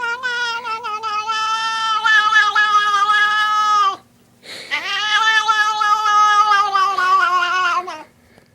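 A cat yowling: two long, drawn-out calls, the first about four seconds long, the second starting after a short break and ending shortly before the end.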